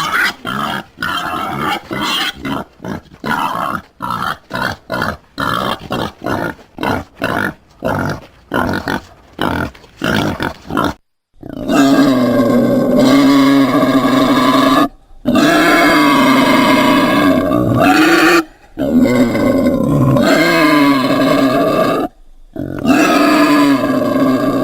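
Animal calls: a quick run of short grunting calls, two or three a second, for about eleven seconds, then several long drawn-out calls of steady pitch, each lasting about three seconds.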